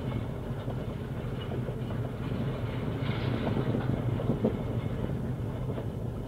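Tram running on rails, old recording: a steady low hum and rumble with a few faint clicks.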